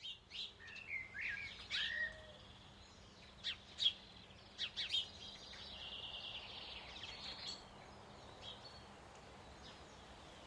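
Birds singing and chirping: a run of short whistled calls and sharp chirps, then a steady high trill for a couple of seconds in the middle, fading to a few faint calls over soft outdoor background noise.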